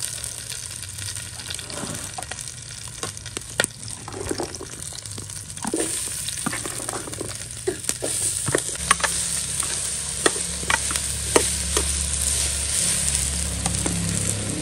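Chopped tender squash being spooned into hot oil in a clay cazuela, sizzling and frying, with many short clicks and scrapes of a metal spoon. The sizzle grows louder about six seconds in as more squash hits the oil.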